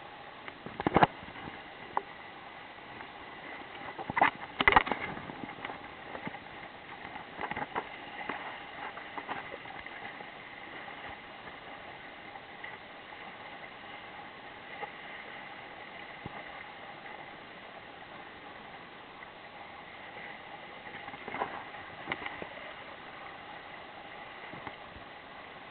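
Water rushing along and slapping against the hull of a small sailing dinghy under way, with a steady hiss and several louder splashes and knocks: about a second in, around four to five seconds in, and again a little past twenty seconds.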